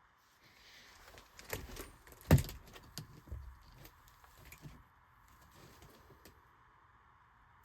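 Handling noises: a series of clicks and knocks with some rustling, the loudest a single sharp knock a little over two seconds in.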